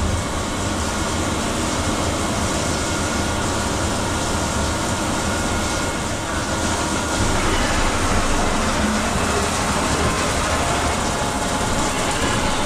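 Haas five-axis CNC mill pre-drilling a chromed steel swivel spindle under flood coolant: steady spindle and cutting noise mixed with the hiss and spatter of coolant spray, getting a little louder about seven seconds in.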